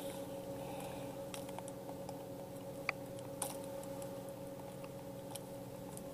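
Steady hum of a boat engine running, with scattered sharp ticks at irregular moments.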